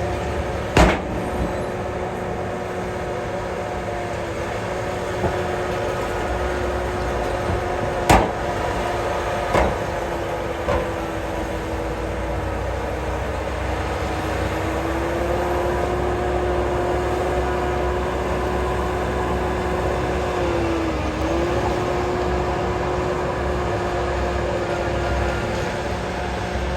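Heavy vehicle engine running steadily, its note dipping briefly a couple of times, with three sharp knocks in the first ten seconds.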